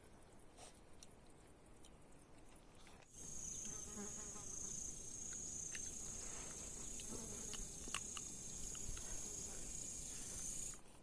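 Insects chirping in a steady, high-pitched pulsing chorus. It becomes clearly louder about three seconds in and drops back just before the end, with scattered small clicks.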